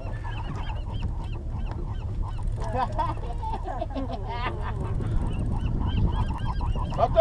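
Steady low drone of the fishing boat's engine, with a regular run of short high squeaky calls, about two or three a second, throughout. A single louder sharp sound comes right at the end.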